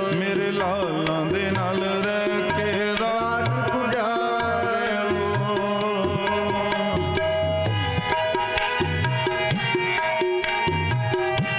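Kirtan music: tabla playing under a melodic line. The melody wavers and ornaments for the first few seconds, then settles into steadier held notes over the drumming.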